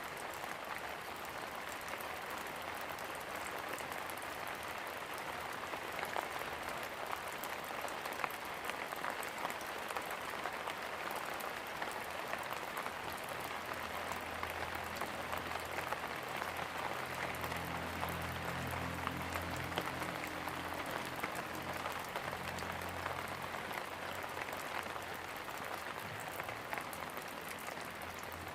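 Steady rain falling, a dense patter of drops. About halfway through, a low hum comes in beneath it and holds to the end.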